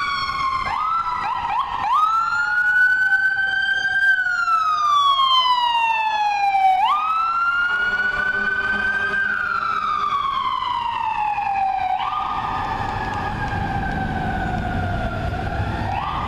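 Fire apparatus sirens wailing. The pitch sweeps up quickly, then slides down slowly, about every five seconds. Short rapid sweeps come near the start, and a low rumble joins for the last few seconds.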